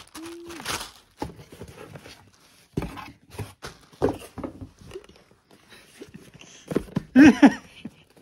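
A small cardboard gift box being handled and opened, with scattered knocks and rustles. About seven seconds in comes a brief, wordless vocal sound, the loudest thing heard.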